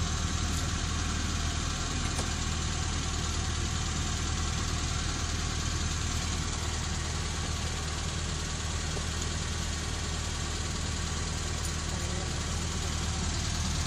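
Truck engine idling steadily, an even low hum without change.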